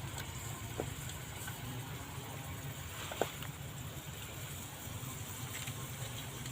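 Steady low rumble with a faint hiss, and two short clicks, the louder one about three seconds in.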